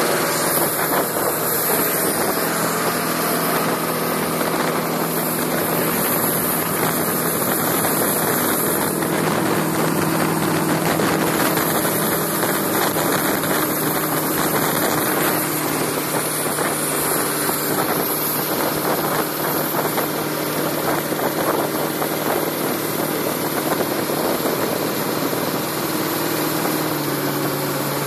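Rebuilt Chrysler 318 poly V8 inboard of a 1960s Everingham racing runabout running steadily with the boat under way at speed, along with the rush of water off the hull.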